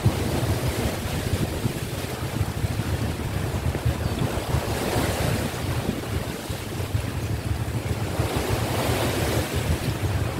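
Sea waves washing ashore, swelling twice, about halfway through and again near the end, over a steady low rumble of wind on the microphone.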